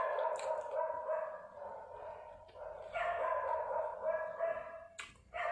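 An animal's high, wavering whine, held for about two seconds, then again from about three seconds in for nearly two seconds.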